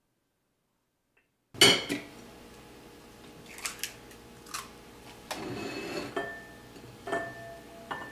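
Egg being separated by hand over ceramic dishes. After a silent start, a sharp knock on a ceramic dish about a second and a half in, then scattered light clinks and taps of shell and fingers against the plate and bowl.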